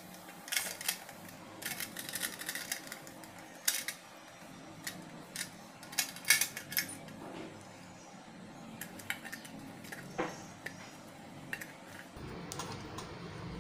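Faint, scattered clicks and light scrapes of a stainless steel tray handled by hand while its inside is rubbed with oil.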